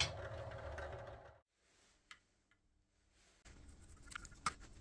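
Drill press running with a countersink bit in its chuck: a steady motor hum that cuts off about a second and a half in. Near the end come a few light metallic clicks as a hand tap in a tap wrench is handled, the loudest just before the end.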